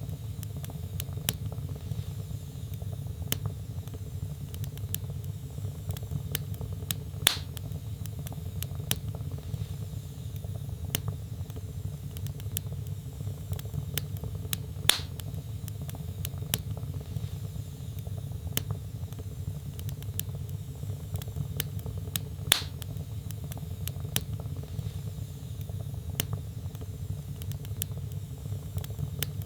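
Burning logs in a fireplace crackling: a steady low rumble of flame with many small sharp crackles and three louder pops, evenly spaced about seven and a half seconds apart.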